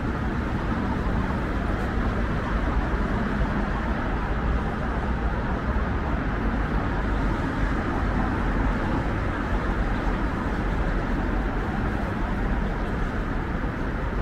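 Steady road traffic noise from a busy multi-lane city road, an even blend of car engines and tyres with no single vehicle standing out.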